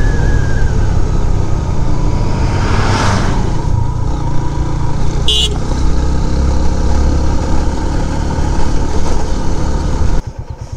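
Motorcycle engine running at road speed under heavy wind rumble on the microphone. An oncoming truck rushes past about three seconds in, and there is a brief high toot about two seconds later. Near the end it cuts to the motorcycle idling with quieter, evenly pulsing beats.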